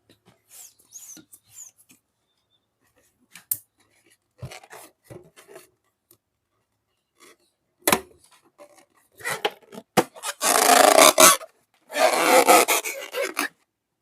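Hands working slime and slime-filled balloons: scattered squishes, rubs and a few sharp snaps, then two loud rasping, crackling bursts, each about a second long, near the end.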